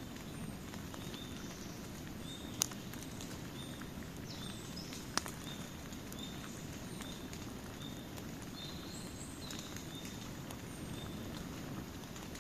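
Campfire burning with a steady low rush and faint crackling, and two sharp loud pops, one about two and a half seconds in and one about five seconds in. Short faint high chirps repeat about once a second in the background.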